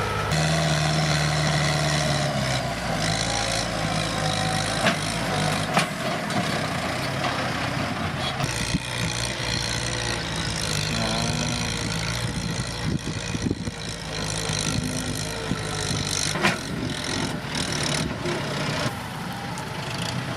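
Diesel tractor engine running steadily, with a few sharp clanks scattered through.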